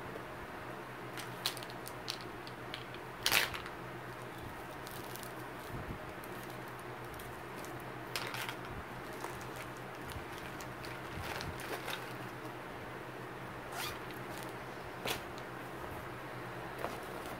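Rummaging through a handbag: scattered short rustles and clicks of items being moved and handled, the loudest a brief rustle about three seconds in.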